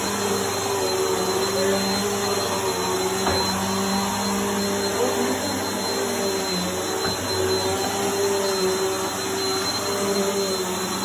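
Bissell Helix vacuum cleaner running steadily, a hum with a thin high whine over the rush of air, with a few faint ticks as crunchy debris is sucked up.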